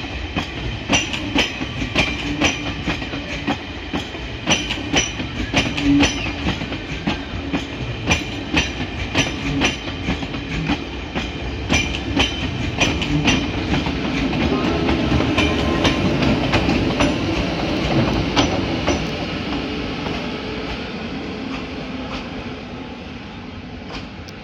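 Train of passenger coaches rolling past, wheels clacking over rail joints and points in an uneven rhythm over a rumble. Partway through, the clacks give way to a steadier rumble that fades toward the end.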